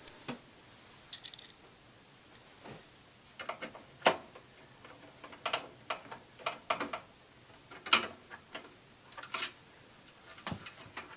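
Hands working at the rear expansion-slot brackets of an open desktop computer case: scattered, irregular clicks and knocks of metal and plastic parts, the sharpest about four and eight seconds in.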